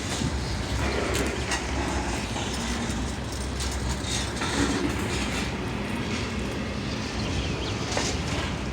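CSX freight train's cars rolling slowly past, a steady rumble of wheels on rail with occasional faint clicks.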